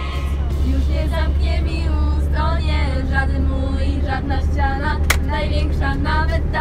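Several young female voices singing together inside a moving coach, over the steady low drone of the bus engine. One sharp smack, like a hand slapping a seat back, about five seconds in.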